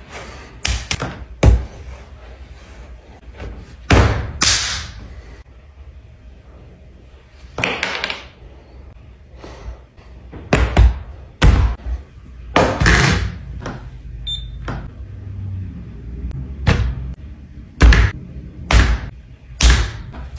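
Wet clay slammed and pressed down onto a tabletop while it is being wedged: heavy dull thuds at irregular intervals, a dozen or so, several coming in quick runs of two or three.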